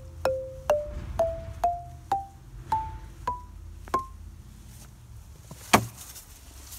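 Outdoor xylophone with hardwood bars struck with a rubber mallet: eight notes climbing up the scale, about two a second and slowing slightly, each ringing only briefly. About a second and a half after the last note comes a single sharp knock, louder than the notes.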